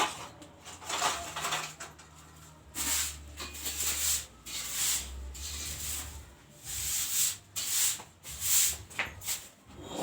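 Hands working with wires on a small transformer: irregular rubbing and scraping noises, some short and some about a second long, with pauses between them.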